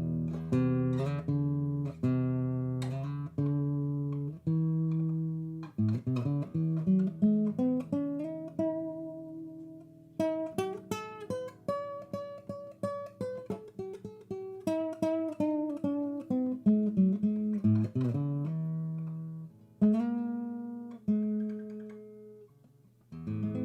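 Acoustic guitar music: strummed chords, then picked single-note runs and slides.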